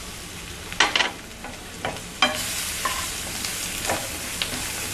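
Onions, peanuts and spices sizzling in oil in a nonstick kadai, stirred with a wooden spatula that knocks against the pan about a second in and again just after two seconds. After the second knock the sizzle is louder.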